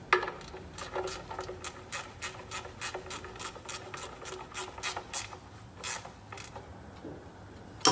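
Hand ratchet wrench clicking as a bolt is worked under the truck: a run of sharp clicks, about three a second, for the first five seconds, then two more spaced out, and a loud clack at the very end.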